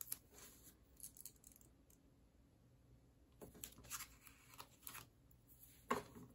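Faint handling sounds of washi tape being worked onto a paper card: scattered short scratches and rustles, a cluster of them in the middle, then a light knock near the end as the hand goes to a plastic box of tape rolls.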